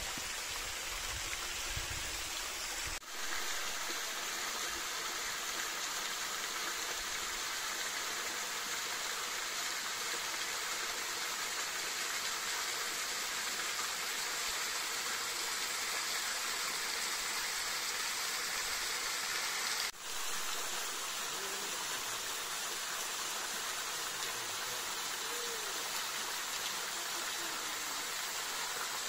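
Steady rushing of a flowing stream, an even wash of water noise that briefly drops out twice.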